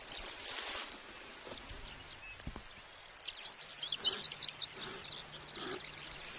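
Savanna ambience with a small bird chirping a quick run of high notes about three seconds in, and fainter calls after it. A faint steady low hum lies underneath.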